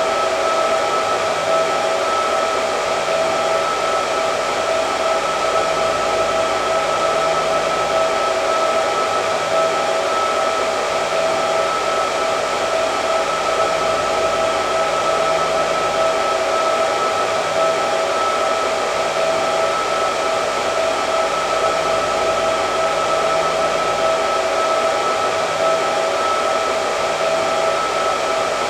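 Hair dryer running steadily: a constant rush of air with a steady whine from its motor and fan.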